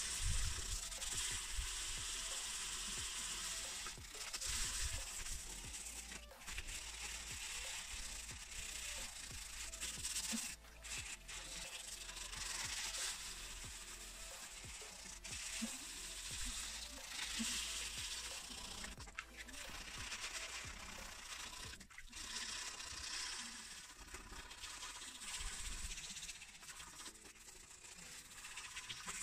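400-grit wet-and-dry sandpaper rubbed by hand over a white plastic motocross side panel, a steady scratchy hiss that swells and fades with the strokes. The coarser grit is levelling deep scratches in the plastic.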